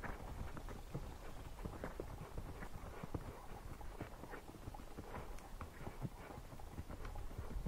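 Horses' hooves clip-clopping on a dirt trail at a walk: many short, irregular knocks over a low rumble.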